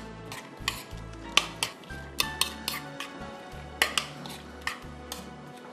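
Salad being stirred and tossed in a plastic mixing bowl, with irregular sharp clicks and knocks against the bowl, over background music.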